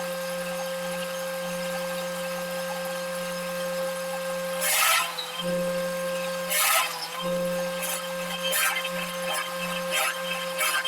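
Wood shaper machine running with a steady motor hum and whine. Its cutter bites into wood in two loud, rasping cuts about five and seven seconds in, followed by several shorter cuts. The motor's pitch sags briefly under the load of the bigger cuts.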